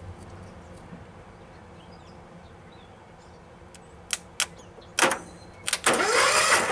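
Cub Cadet 1811 lawn tractor engine being cranked with its spark plugs out: a few sharp clicks about four seconds in, then the starter turning the engine over briefly in a loud, noisy whir whose pitch climbs.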